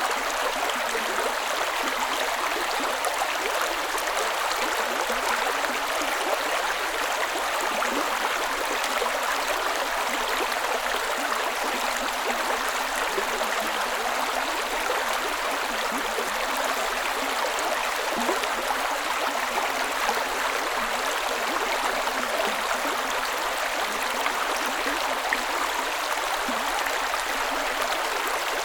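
A creek running over rocks: a steady, even rush and babble of shallow flowing water.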